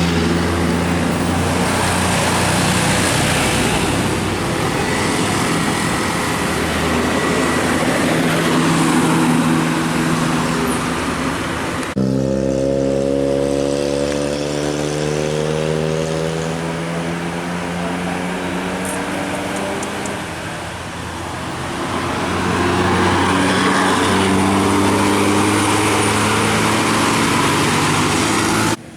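Large bus engines running as buses go by: a steady, loud engine drone. About twelve seconds in the sound changes abruptly and the engine note slides in pitch, then it settles back into a steady drone.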